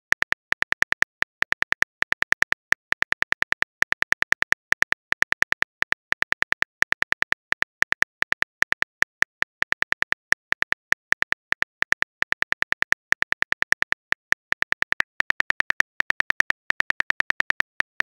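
Keyboard click sound effect of a texting app, a fast irregular run of short, bright taps, several a second, as a message is typed out letter by letter.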